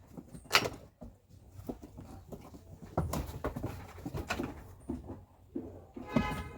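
Scattered sharp knocks of a hammer on a chisel cutting into the wooden floor boards of a goat pen, with a short goat bleat near the end.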